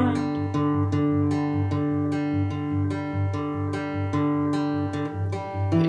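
Steel-string acoustic guitar strummed in a steady, even rhythm, the chords ringing between strokes.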